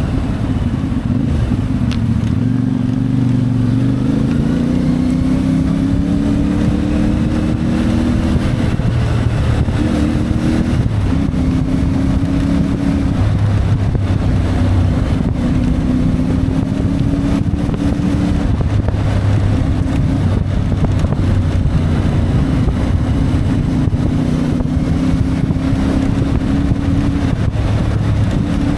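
CFMoto 450MT motorcycle's parallel-twin engine under way, its pitch rising as it accelerates over the first several seconds, then running at fairly steady revs with several steps up and down in pitch as the throttle and gears change.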